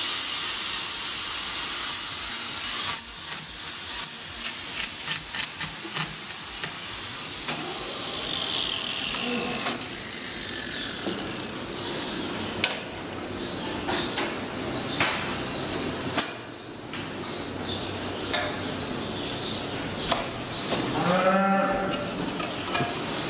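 Work at a hydraulic cattle hoof-trimming chute: a steady hiss at first, then a quick run of sharp clicks and knocks and scattered knocks after. Near the end comes a short, low call.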